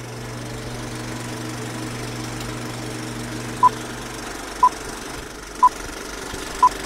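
A vehicle engine running with a steady hum. Four short, high beeps sound about a second apart in the second half.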